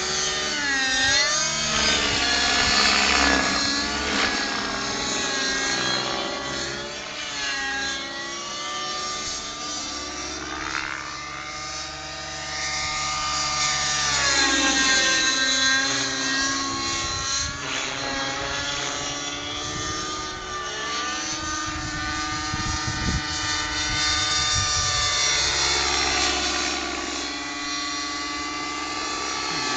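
Nitro radio-controlled helicopter, a Velocity 50 with a YS 56 glow engine, flying manoeuvres: its engine and rotor whine keeps rising and falling in pitch as it turns, climbs and passes.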